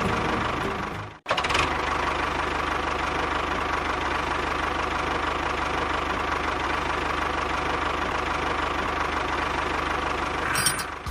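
A small motor on a miniature DIY tractor or mixer running steadily with a dense rattle. It cuts out abruptly about a second in and then picks up again at the same pace.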